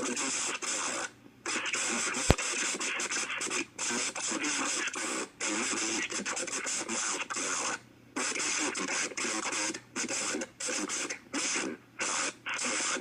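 Emergency Alert System warning message read out in a broadcast voice, buried under heavy radio static and hiss, with brief pauses between phrases and a sharp click about two seconds in.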